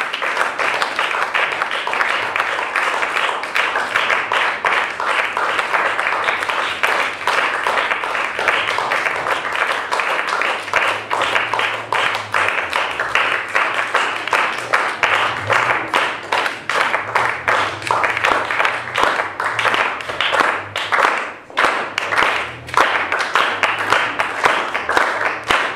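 Audience applauding steadily, thinning in the last few seconds to fewer, separate claps.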